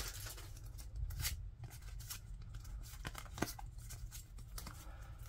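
Pokémon trading cards being flipped through by hand: faint scattered slides and clicks of card against card, over a low steady room hum.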